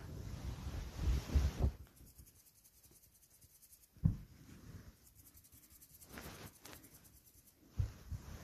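Close rustling and rubbing noises, heaviest in the first two seconds, with a sharp low thump about four seconds in and another near the end.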